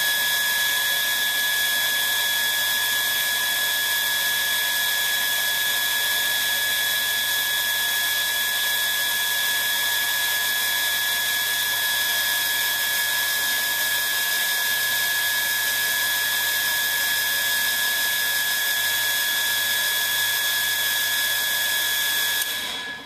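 Serap Wash 2000 milk tank wash system running steadily as it fills with water: a constant whine with a hiss. It cuts off suddenly near the end, when the rising water in the tube trips the air-pressure level sensor and the fill stops.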